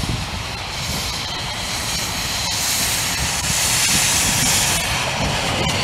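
Bagnall saddle tank steam locomotive approaching with its train: a hiss of steam over a low rumble, growing louder as it nears.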